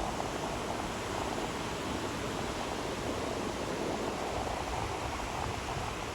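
Ocean waves washing on a beach: a steady, even hiss of surf with no separate crashes.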